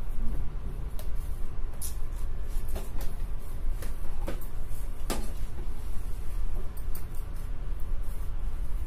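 Hands kneading pearl millet dough in a large steel plate: soft pressing and squishing, with irregular light knocks and clicks from the plate, over a steady low rumble.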